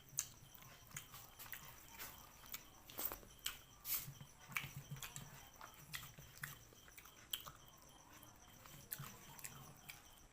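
Close-miked eating sounds: wet chewing, biting and crunching, with irregular sharp clicks and smacks that are busiest in the first half.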